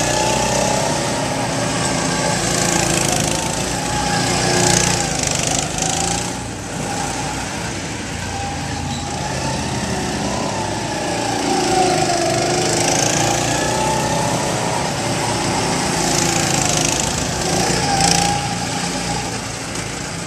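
Several go-kart engines running as the karts circle the track, a small-engine drone whose pitch rises and falls as they speed up and slow down.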